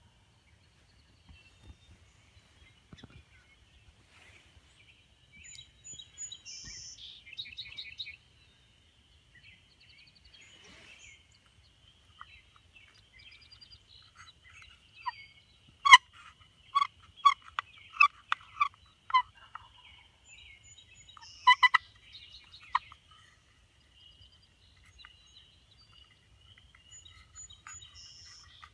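Turkey calling: a loud series of about ten yelping notes, roughly three a second, followed a few seconds later by another short loud burst. Under it runs a steady high trill with a few scattered songbird notes.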